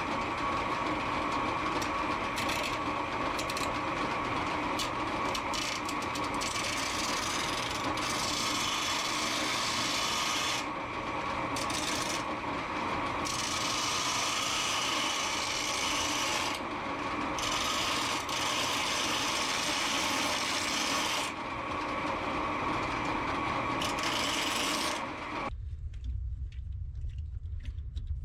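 A power tool grinding away material in one continuous run, with its hiss shifting as the load changes, then stopping abruptly about 25 seconds in.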